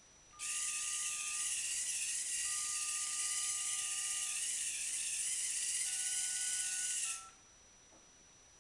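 The robot's small motors give a steady high-pitched whir that starts about half a second in and cuts off sharply after about seven seconds. Over it come several telephone keypad (DTMF) dual tones, each held for a second or two: these are the remote commands steering the robot.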